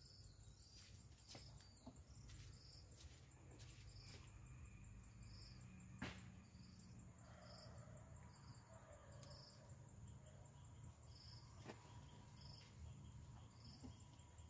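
Faint insects chirping: a steady high trill with short high chirps repeating about once a second, and a few faint clicks.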